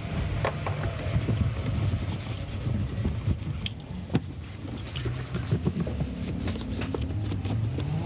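A car engine running with a steady low rumble, with scattered clicks and knocks over it; the engine note rises near the end as it revs.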